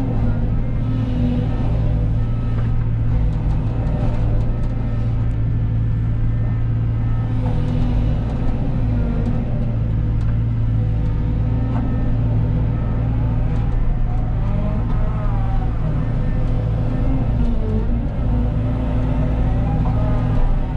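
Cat 313 excavator's diesel engine running steadily while digging, with a whine that rises and falls about two-thirds of the way through.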